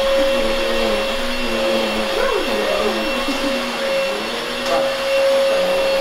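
Deerma VC25 cordless stick vacuum cleaner running steadily: a constant motor whine over the rush of suction air.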